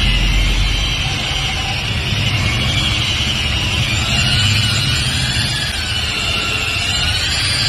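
Electric rotary polisher with a foam pad running against a motorcycle's plastic fairing. Its motor whine wavers slowly in pitch as the pad is pressed and moved.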